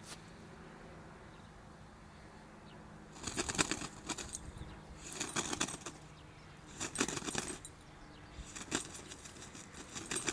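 Five short bursts of rustling and crackling, each lasting a second or less and spaced one to two seconds apart, as a border collie mouths and worries a ball in tall grass.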